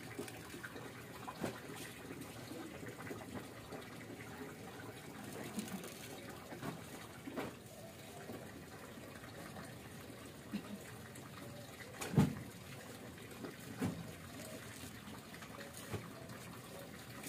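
Cloth rubbing over a car's rear wheel hub as it is wiped clean, with a few light knocks, the loudest about twelve seconds in.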